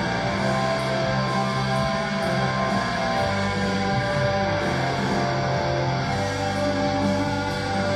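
Music playing, led by guitar, with steady held low notes that change every second or so.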